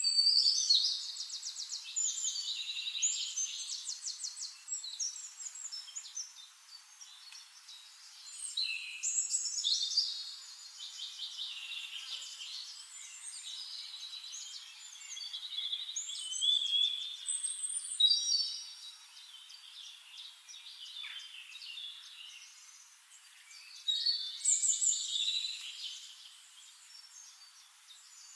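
Songbirds singing: bright, high phrases full of rapid trills and chirps, in bursts a few seconds apart.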